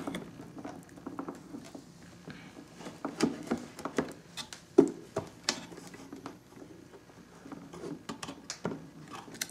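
Scattered small clicks, taps and knocks of a graphics card being pressed and wiggled into a motherboard's PCIe slot, with one sharper knock about five seconds in. The card is not seating fully.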